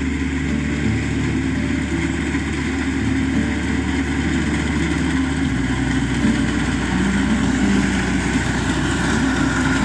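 Yanmar rice combine harvester's engine running steadily during harvesting.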